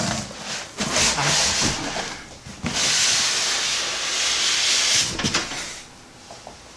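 Packaging being handled as a PC case is unboxed: scratchy rubbing and rustling, then a steady hiss of about two seconds in the middle as material slides against material, fading to quiet handling near the end.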